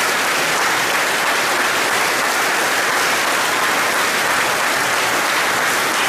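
Large audience applauding: steady, sustained clapping from a crowd.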